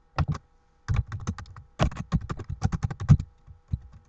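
Computer keyboard typing a short message: two key clicks just after the start, then a quick run of key presses lasting about two seconds.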